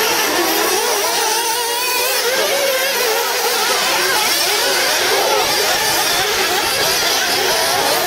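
Several 1/8-scale RC off-road buggies' small nitro engines running at racing speed, a tangle of high engine notes each rising and falling as the cars accelerate and brake through the corners.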